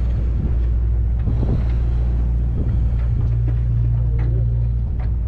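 A boat's engine running with a steady low drone, with a few faint clicks over it.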